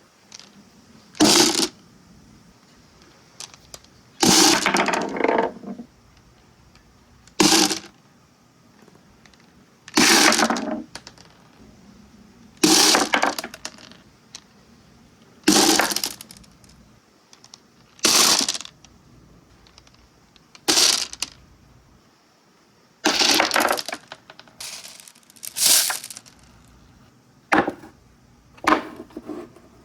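Marbles rolling and clattering down a marble run, one after another about every two to three seconds, each run a short sharp burst of clacks.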